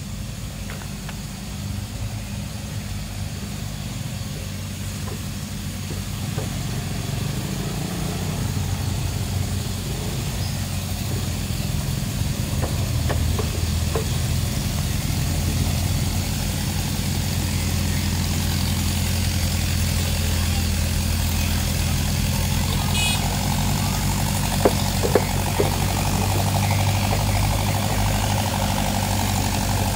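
Steady engine drone with a low hum, growing gradually louder, from the pump engine on a moored sand barge that drives the red sand-pumping hose. A few short sharp knocks sound near the end.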